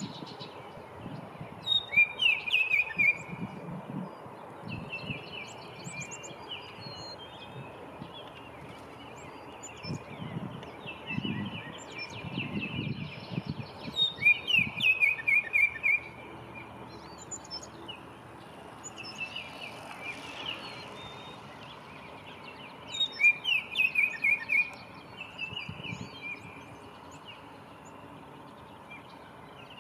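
Songbirds singing. A loud phrase of quick, clear notes comes three times, about ten seconds apart, with softer songs and chirps from other birds between.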